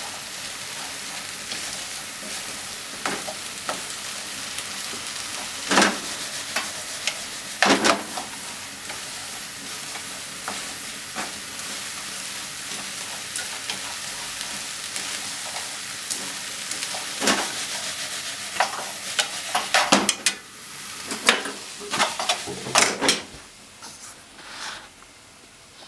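Wiener sausages and vegetables sizzling in a frying pan as they are stir-fried and tossed with a wooden utensil that knocks and scrapes against the pan now and then. The knocks come closer together near the end, then the sizzling dies down.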